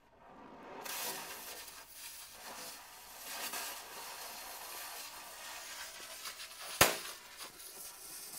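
Cutting torch cutting through rusty steel pipe: a crackling hiss of the cutting jet and spitting molten slag, starting about a second in. A single sharp pop near the end is the loudest sound.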